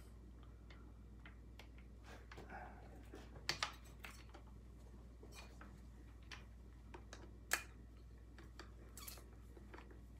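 Scattered small clicks and taps of metal and plastic parts being handled while a carburetor is worked onto the intake of a Husqvarna 246 chainsaw, with two sharper clicks partway through.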